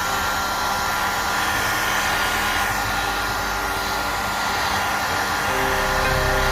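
Electric hot-air blower running steadily: an even rush of air with a constant motor whine.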